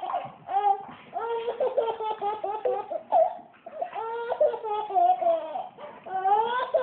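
A baby laughing in repeated bursts, some of them drawn out into long high squeals.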